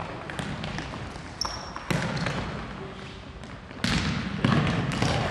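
Futsal ball being kicked and bouncing on a wooden gym floor: a few sharp thuds that echo through the large hall, the loudest near the end.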